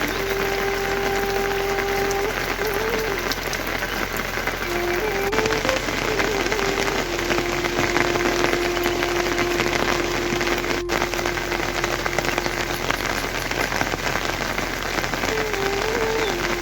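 Heavy rain falling in a dense, steady patter. Underneath it a held tone steps up and down between a few pitches every few seconds.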